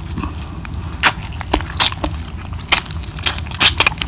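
Close-up mouth sounds of a person chewing a bite of curried chicken: irregular wet clicks and small crunches, several a second, some sharper than others.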